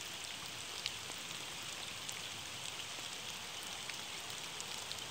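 Steady rain falling on a lake's surface: a dense, even hiss with scattered small drop ticks.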